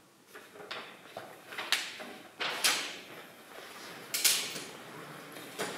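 Handling noises: scattered light clicks and knocks, with two louder scraping rustles about two seconds apart.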